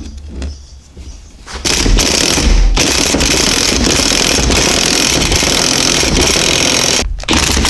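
A pneumatic tool hammering continuously against the suspension hardware to work an old ball joint out of the upper control arm. It starts about a second and a half in after some light metal clinks, cuts out briefly near the end, and then starts again.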